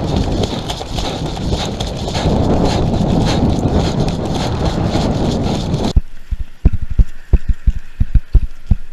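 Wind buffeting a body-worn camera's microphone, with rustling, as a player moves off. About six seconds in it cuts abruptly to a quieter scene of irregular heavy thumps, footfalls jolting the camera as a player runs.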